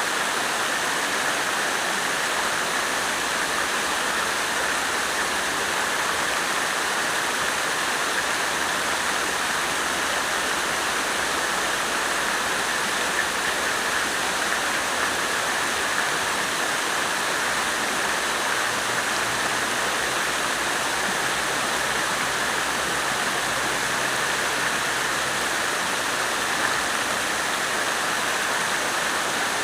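Water fountain splashing steadily: a continuous, even rush of falling water.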